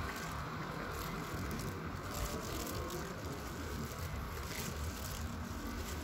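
Steady room hum and hiss of a large air-conditioned hall, with faint scattered rustles.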